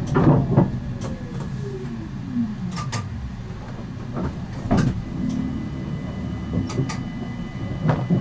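Siemens Avenio low-floor tram's electric drive whining down in pitch as the tram slows to a stop, over a low running rumble, with several short knocks a second or two apart.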